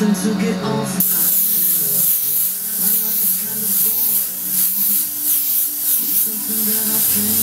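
Airbrush spraying paint onto a t-shirt through a paper stencil. Its hiss starts about a second in and swells and eases in repeated passes.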